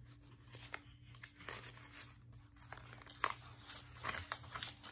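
Paper pages and tags of a handmade journal being handled and turned: soft rustling and crinkling with scattered light ticks, one sharper tick a little past the middle, over a faint steady hum.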